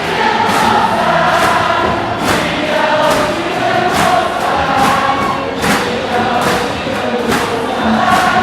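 A baseball stadium crowd singing a KIA Tigers team cheer song in unison, with sharp hits keeping an even beat a little faster than once a second.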